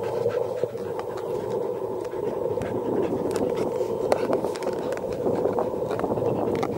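Loud, steady hum of the YI handheld gimbal's motors, picked up by the YI 4K+ camera's own microphone: the motor noise that spoils this camera-and-gimbal setup. Over it come scattered clicks and scratches of a dog's teeth on a plastic frisbee, with panting.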